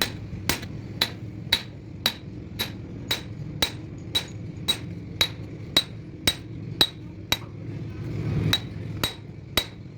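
A hammer striking metal in a steady rhythm, about two blows a second, each blow ringing briefly.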